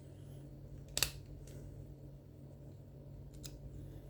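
Small metal clicks of lock-picking tools working in a Rav-Bariach dimple lock: one sharp click about a second in and a couple of fainter ticks later, over a steady low hum.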